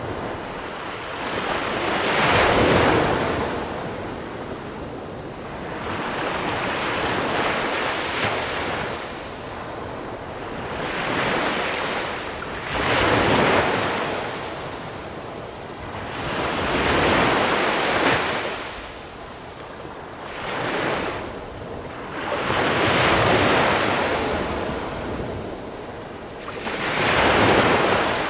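Small sea waves breaking and washing over a beach of small pebbles, each swell of surf rising and falling away, about eight in turn every three to five seconds.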